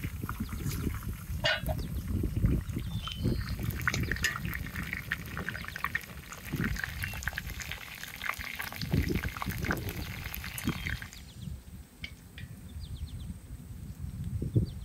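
Chicken pieces and sliced onions sizzling and crackling in a wide steel pan over a wood fire, the sizzle thinning out about eleven seconds in. Wind rumbles on the microphone throughout.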